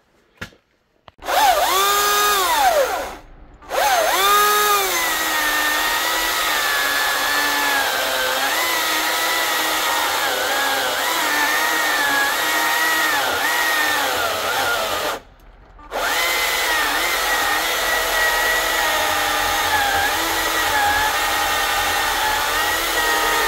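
Greenworks Commercial 82V battery chainsaw with a 24-inch bar, cutting through a log. The electric motor's whine starts about a second in and falls in pitch as the chain bites. It drops out briefly twice, then runs steadily under load, its pitch wavering as the chain works through the wood.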